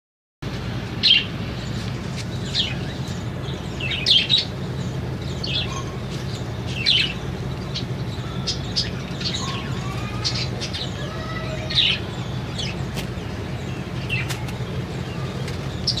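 Small parrots in an aviary, budgerigars among them, giving sharp short chirps every second or two, with softer warbling chatter in the middle, over a steady low hum.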